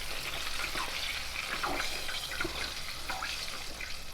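Chicken thighs deep-frying in hot oil in an electric deep fryer: a steady sizzle with many small crackles.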